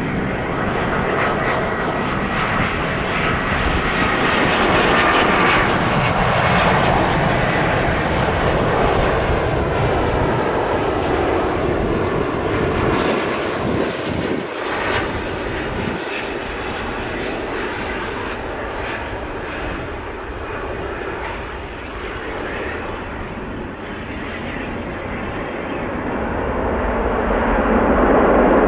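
Airbus A350-900's Rolls-Royce Trent XWB turbofans on final approach to landing, a steady jet rumble with a faint falling whine as the aircraft passes. The noise eases as it flies on toward the runway, then grows louder again near the end as it is on the runway after touchdown.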